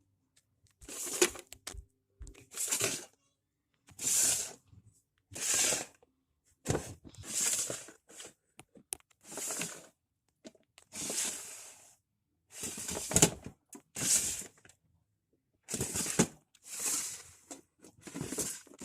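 Rustling handling noise in short bursts, about a dozen of them roughly a second apart, with quiet gaps in between.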